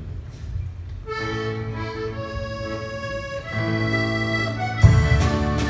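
Button accordion playing the opening melody in long held notes, joined near the end by a strummed acoustic guitar and drum beats as the band comes in.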